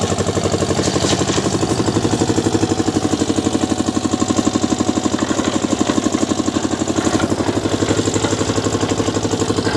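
Small engine of a drum concrete mixer running steadily, with a fast, even pulsing beat.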